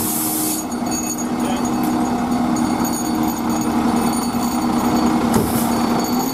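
Fire engine's diesel engine running with a steady drone as the pumper pulls out, with a loud burst of air hiss at the start and a shorter hiss about five seconds in.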